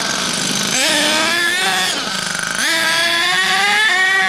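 Small nitro glow engine of a Thunder Tiger MTA4 RC monster truck revving up and down as it is driven; its high-pitched note drops and then climbs sharply twice.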